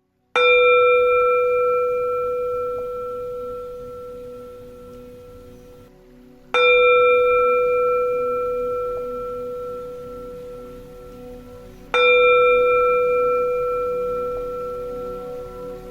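Buddhist temple bell struck three times, about six seconds apart, each stroke ringing out slowly with a clear low tone and several higher overtones.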